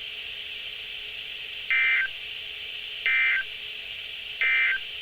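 NOAA Weather Radio's EAS end-of-message signal: three short, buzzy bursts of SAME digital data tones, about a second apart, marking the end of the alert. Steady radio static runs underneath.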